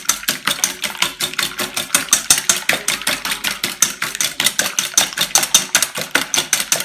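Wire whisk beating eggs in a stainless steel bowl, the wires clattering against the metal in rapid, even strokes, about five or six a second.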